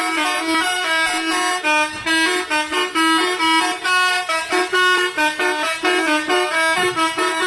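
Bus telolet horn, a multi-trumpet air horn, playing a quick tune of short notes that step up and down without a break.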